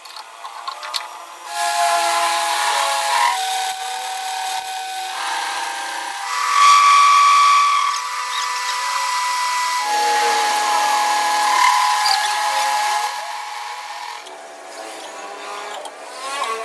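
Electric power tool running in spells of a few seconds, its motor pitch shifting from one spell to the next.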